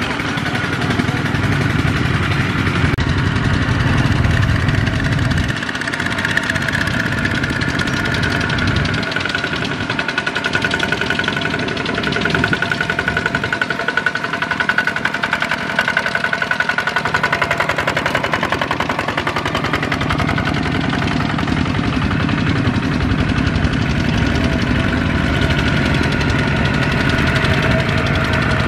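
Single-cylinder diesel engine of a two-wheel walking tractor running under load while pulling a loaded trailer, with a fast, even chugging beat.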